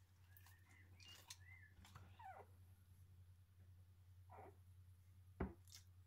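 Faint squeaks and whimpers from eight-day-old Australian Shepherd puppies: several short cries that rise and fall in pitch in the first two and a half seconds, and another near the middle. A single sharp knock comes about five and a half seconds in, over a steady low hum.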